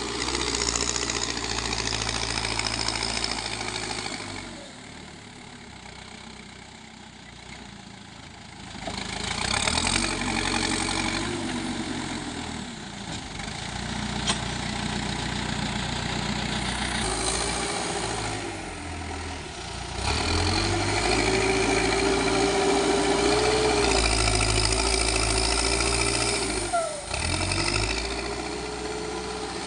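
Backhoe loader's diesel engine working: it idles more quietly for a few seconds, then revs up and down repeatedly under load, with rising and falling pitch. There is a single sharp clank about halfway through.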